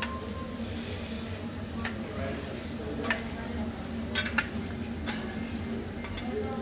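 Food sizzling on a steel teppanyaki griddle, with several sharp metal clicks and scrapes of the chef's spatula on the hotplate, the loudest pair a little past the middle.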